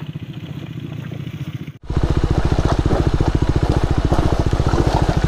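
Bajaj Pulsar RS200's single-cylinder engine running with a steady, even beat. About two seconds in, the sound drops out for an instant and comes back louder.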